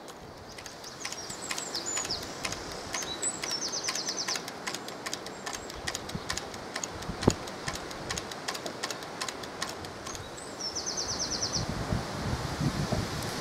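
Wooden scarecrow whirligig turning in the wind, its mechanism clicking about four times a second, the clicks fading after about six seconds. Wind and rustling leaves run throughout, and a small bird chirps, with two short trills.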